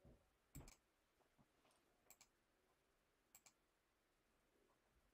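Faint computer mouse clicks, some in quick press-and-release pairs, coming three times about a second and a half apart over near silence, as presentation slides are advanced.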